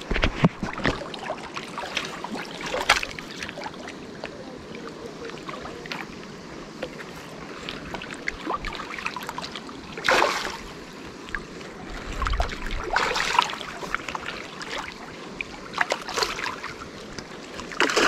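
A hooked fish splashing and thrashing at the water's surface while it is played on a spinning rod: several short splashes a few seconds apart over steady lapping water and wind.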